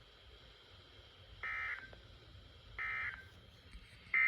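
Emergency Alert System end-of-message data bursts on NOAA Weather Radio: three short, buzzy digital tone bursts about a second and a half apart, the third starting near the end, signalling the end of the alert broadcast.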